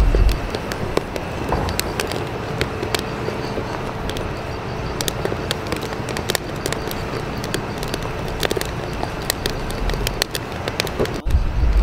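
Steady, noisy background ambience with many scattered sharp clicks and crackles, and a low rumble at the start and again near the end.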